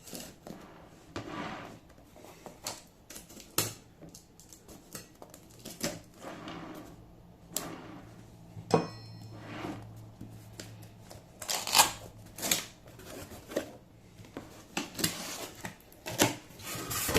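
A cardboard parcel being handled and opened by hand: irregular clicks and knocks, with a few longer rustling noises of packaging about twelve seconds in and near the end.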